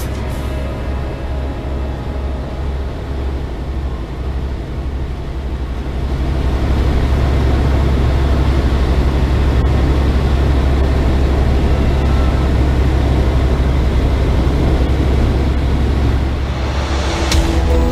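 Tecnam P92 light aircraft's engine and propeller in cruise, a steady low drone heard from inside the cockpit, getting louder about six seconds in.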